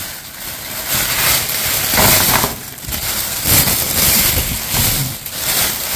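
Thin plastic shopping bags crinkling and rustling loudly as a hand rummages through them, opening a black plastic bag.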